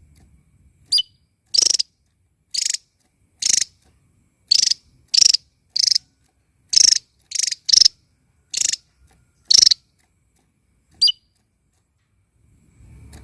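Small songbird giving short, harsh, buzzy calls about once a second, with a couple of thin, falling, high chirps between them; the calls stop about ten seconds in.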